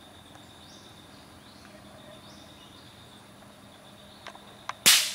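Steady high drone of insects with repeated short rising bird chirps, then near the end a single sharp air-rifle shot.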